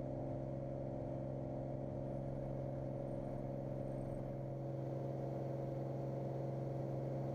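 Cirrus SR22's six-cylinder piston engine droning steadily, a constant pitch with no rise or fall.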